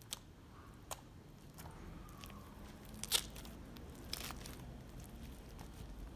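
Fluffy slime made with shaving foam being squeezed and pulled by hand, giving scattered crackles and pops. The loudest pop comes about three seconds in.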